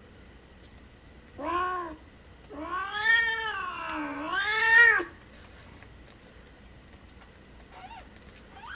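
Mother domestic cat in labour, yowling: a short call, then a long drawn-out yowl that rises, dips and rises again in pitch. Two faint, higher cries follow near the end.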